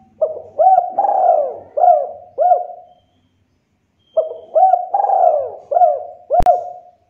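Spotted dove (tekukur) cooing: two phrases about three seconds each, a second apart, each a run of about five hooked coos with a longer one in the middle. A sharp click falls near the end of the second phrase.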